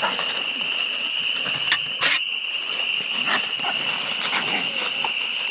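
Two young bluetick coonhounds scuffling and growling as they worry their catch in dry leaves, with sharp rustles and snaps about two seconds in, over a steady high-pitched whine.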